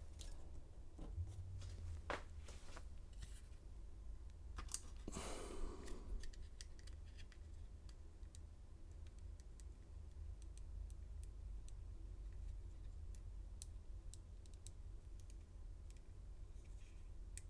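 Small clicks and light scraping from handling and measuring tiny brass lock pins with a measuring tool, over a steady low hum. There are two stronger handling noises, about two and five seconds in.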